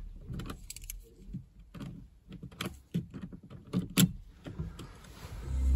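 Scattered small clicks and knocks of controls being handled in a car's cabin, then near the end the car radio comes on, playing music with a heavy bass.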